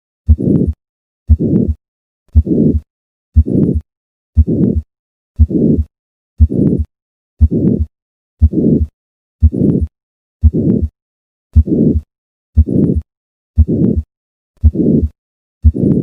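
Heart sounds of hypertrophic cardiomyopathy at the fourth left intercostal space: each beat is a first heart sound followed by a harsh systolic murmur lasting about half a second, then a short silence. The beats repeat about once a second.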